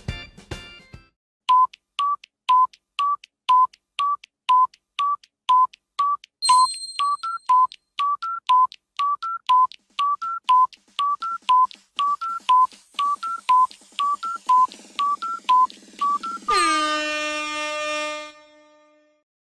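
Music cuts off about a second in, then a countdown timer sound effect beeps about twice a second, alternating between two pitches, for about fifteen seconds. Time running out is marked by a ringing chime that fades away.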